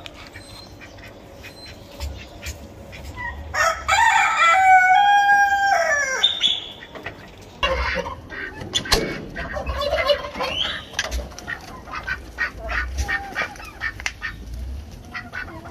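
Flock of chickens clucking, with a rooster crowing once, loudly, for about three seconds starting about three and a half seconds in; its call falls away at the end. Many short clucks follow.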